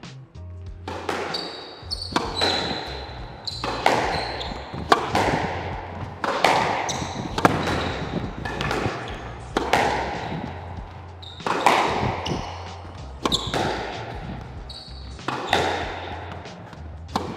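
A squash rally: the ball struck by racquets and hitting the walls about every second or so, each crack followed by a short echo in the enclosed court, with brief high squeaks between shots.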